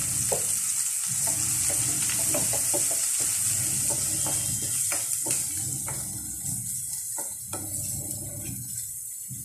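Chopped onions, tomatoes and green chilies sizzling in a frying pan while a wooden spoon stirs them, with light taps and scrapes of the spoon against the pan. The sizzle slowly dies down toward the end.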